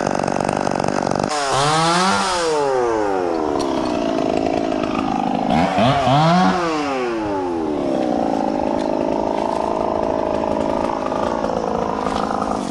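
Small two-stroke chainsaw running at high revs. About a second in the revs fall away in a dropping whine, they rise and fall again around six seconds in, then the saw runs steadily at a lower pitch before dropping back near the end.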